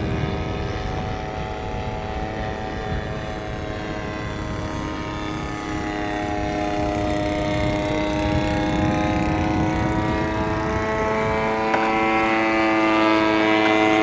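Engine and propeller of a radio-controlled Spacewalker model floatplane running steadily in flight, growing louder over the last few seconds as the plane comes in low toward the water.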